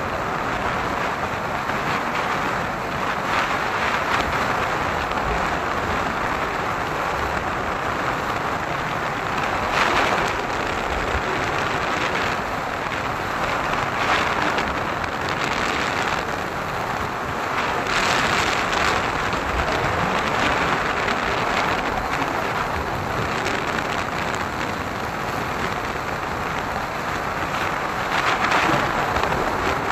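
Wind rushing over the microphone of a motorcycle riding at about 66 km/h: a steady hiss that swells and eases every few seconds, with road and engine noise beneath.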